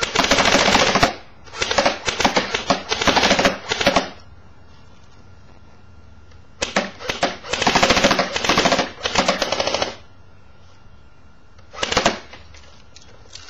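Battery-powered Steyr AUG airsoft gun (electric) firing in full-auto bursts of rapid clicks: about a second's burst at the start, a run of short bursts, a longer broken burst in the middle, and one short burst near the end.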